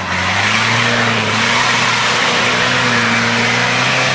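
Off-road vehicle's engine held at high, steady revs, with a rushing hiss over it.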